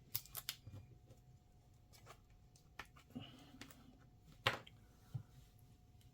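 Light clicks and taps of hands working on small plastic parts and cables inside an opened laptop, with a sharper click about four and a half seconds in.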